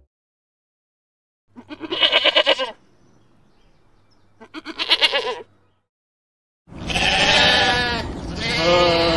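Sheep bleating: two short, wavering bleats a few seconds apart, then louder, longer bleats running together from about two-thirds of the way in.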